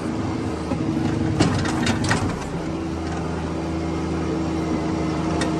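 A Bobcat 322 mini excavator's three-cylinder Kubota diesel running, with a few knocks and clanks and a wavering engine note in the first two seconds or so while the hydraulics work, then settling into a steady run.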